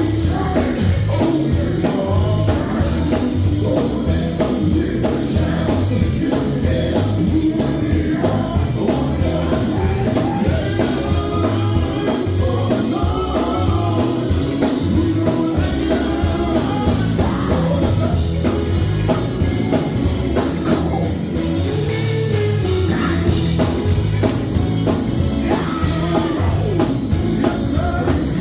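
Live gospel band playing, with drum kit, bass and guitar and singing over it.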